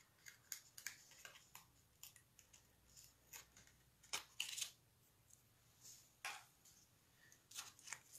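Faint scattered clicks and short rustles of cardstock being handled as foam adhesive dimensionals are peeled and pressed on, with a few sharper clicks around the middle.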